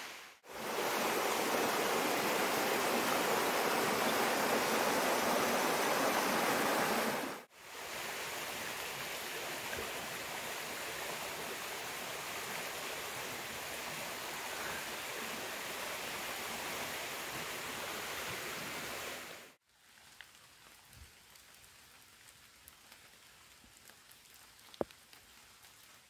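Steady rushing of running water. It is loud for the first seven seconds, then somewhat quieter after an abrupt cut. After a second cut it gives way to a much quieter stretch of faint rustles and ticks, with one sharp click near the end.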